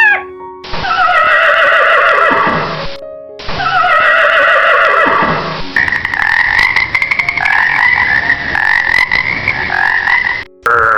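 A large animal calling: two calls of about two seconds each that fall in pitch, then a longer wavering call of nearly five seconds, with abrupt cuts between them.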